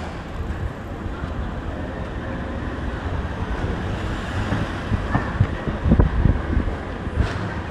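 City street ambience: a steady hum of road traffic, with a cluster of low thumps about six seconds in.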